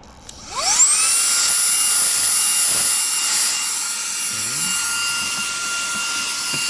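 Reikiya HV-C11 cordless handheld vacuum switched on about half a second in: its motor spins up with a rising whine, then runs steadily with a high whine over rushing air as it vacuums.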